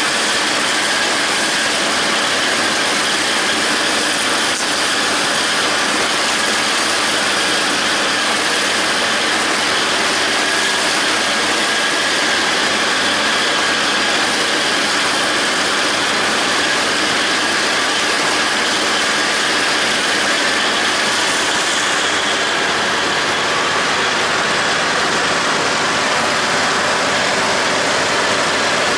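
John Deere 5320 tractor's diesel engine running steadily under load while the John Deere 270 disc mower cuts grass hay, heard from the operator's seat as one even, dense mechanical noise.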